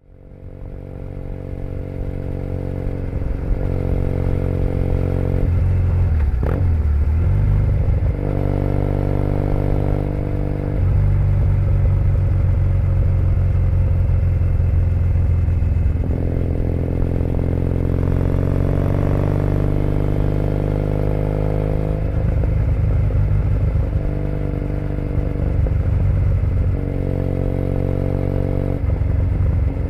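2008 Triumph Bonneville T100's air-cooled 865 cc parallel-twin engine running through aftermarket British Customs Predator exhaust pipes on the move, its note rising and falling with the throttle and breaking off and picking up again every few seconds as it shifts. The sound fades in at the start.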